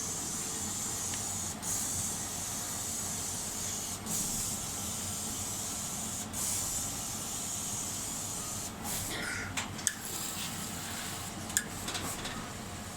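A steady high hiss, then several sharp clicks and taps in the last few seconds.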